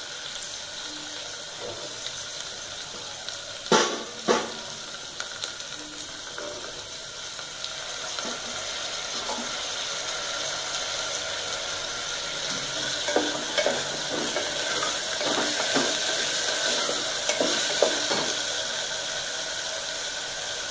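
Chopped vegetables sizzling as they fry in oil in an aluminium pressure cooker, stirred with a wooden spatula. Two louder knocks come about four seconds in, smaller scrapes and clicks of stirring follow later, and the sizzle grows a little louder in the second half.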